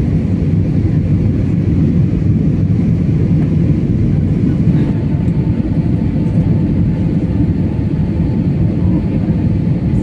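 Steady cabin noise of an Airbus A320 in flight, a low engine and airflow rumble heard from a window seat over the wing.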